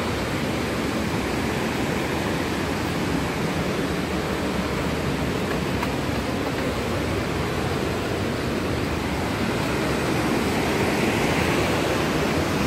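Steady rush of a large waterfall, getting a little louder near the end.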